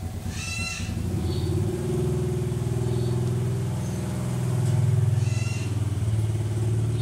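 A motor engine running, a low pulsing drone that swells about five seconds in, with two short animal calls over it, one near the start and one about five seconds in.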